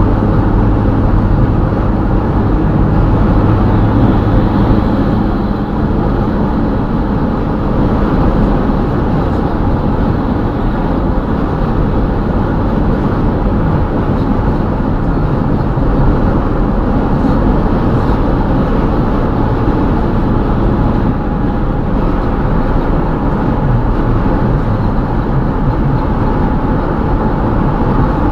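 Steady road noise from a moving car, heard from inside the cabin: an even rumble of tyres and engine, with a low hum that is stronger for the first few seconds.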